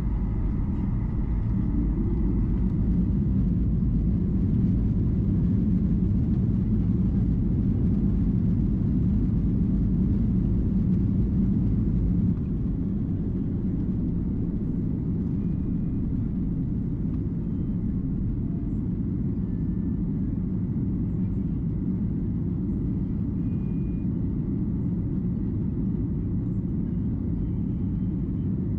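Cabin noise inside a Boeing 737-800 during takeoff: its CFM56 turbofan engines run at takeoff power under a steady, loud rumble as the jet rolls down the runway and lifts off. The level drops a little about twelve seconds in.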